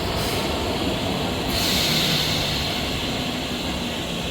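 ScotRail Class 320 electric multiple unit at the platform, a steady train rumble, with a hiss coming in about a second and a half in.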